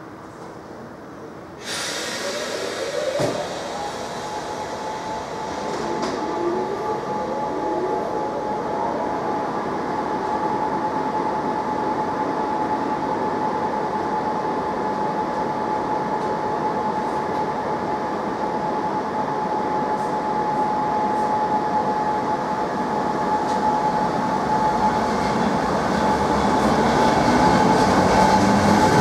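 ČD class 460 electric multiple unit approaching along the platform. Its running noise steps up about two seconds in and keeps growing louder, with a steady high whine held over it.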